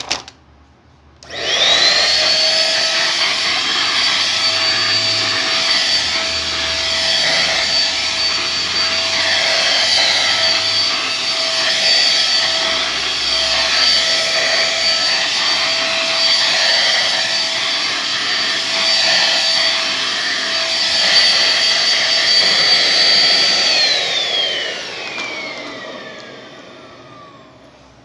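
Mondial upright stick vacuum cleaner switched on a second or so in, its motor whine rising quickly to a steady high pitch over a rushing suction hiss while it is pushed over a shaggy high-pile rug. About four seconds before the end it is switched off and the whine falls away as the motor spins down.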